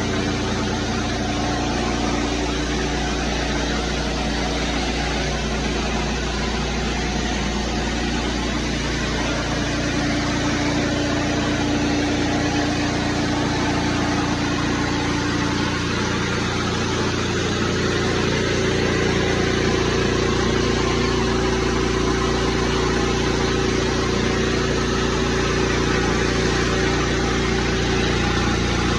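Gas-engine pressure washer running steadily with the hiss of high-pressure water on concrete; the engine note rises slightly and gets a little louder about two-thirds of the way through.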